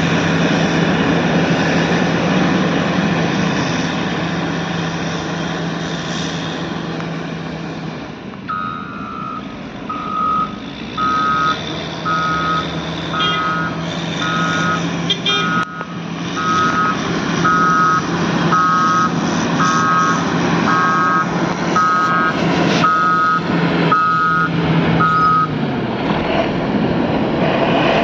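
Caterpillar 120 motor grader's diesel engine running steadily. About a third of the way in, a reversing alarm starts beeping, about three beeps every two seconds, and stops near the end.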